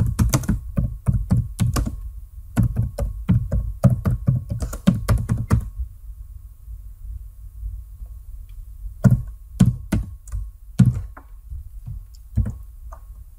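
Computer keyboard typing: a fast run of keystrokes for about six seconds, a pause of about three seconds, then a few slower, separate keystrokes.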